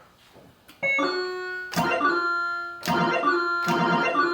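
Bally AS-2518-50 pinball sound board playing electronic game sounds: about four sharp-edged, organ-like tones, each ringing on and fading away, through the machine's speaker. The board's sustain control is being set, and it decides how long each tone rings.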